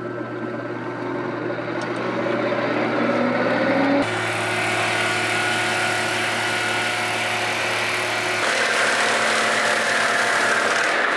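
Swing-blade sawmill running, its engine and circular blade humming and rising in pitch over the first few seconds. From about eight seconds in a louder hissing comes in as the blade cuts through the log.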